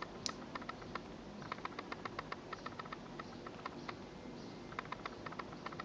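Faint, irregular small metallic clicks, some in quick runs, from a stainless steel Tissot Seastar 1000 dive watch being handled in the fingers: its folding clasp and its ratcheting unidirectional bezel.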